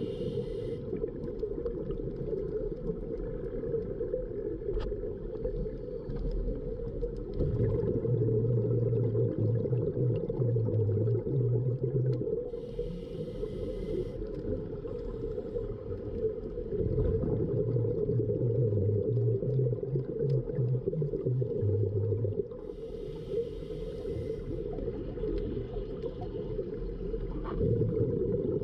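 Scuba diver breathing through a regulator, heard underwater over a steady low rumble. A short hiss of inhalation comes about every ten seconds. Each is followed a few seconds later by a long, low, wavering exhale of bubbles.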